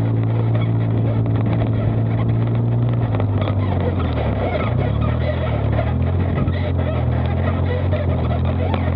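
Polaris side-by-side UTV engine running as the vehicle drives, heard from inside the open cab. Its note holds steady for about three seconds, then wavers and drops, settling at a lower pitch.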